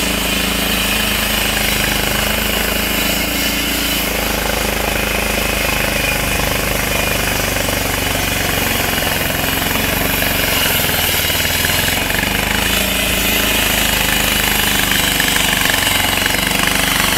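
Walk-behind floor saw running, its engine going steadily while the blade cuts into the asphalt road surface. The engine note shifts about four seconds in.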